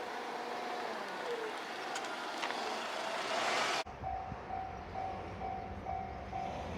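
KiHa 127 diesel railcar running through a level crossing, its noise building over the crossing alarm, until the sound cuts off abruptly about four seconds in. Then the level-crossing warning bell dings a little over twice a second over a low rumble.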